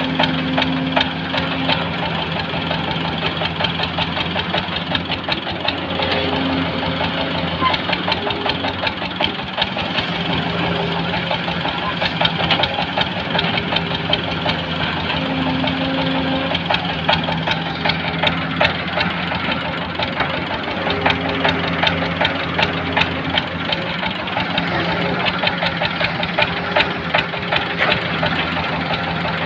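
Hydraulic excavator's diesel engine running steadily with a dense, rattling clatter.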